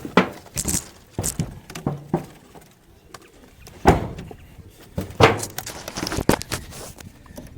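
Irregular knocks, thuds and rattles, as of gear being handled, with a dozen or so sharp knocks; the loudest come about four and five seconds in.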